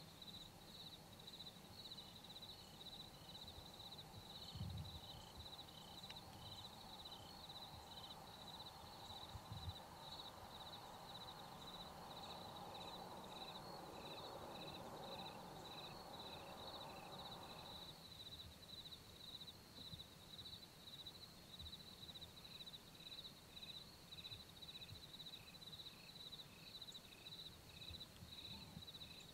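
Quiet outdoor insect chorus: a steady, high, rapidly pulsing trill, with a second insect chirping more slowly, about three chirps a second, that comes and goes. A faint rushing noise builds in the middle and stops abruptly about two-thirds through, and there are two soft low thumps in the first third.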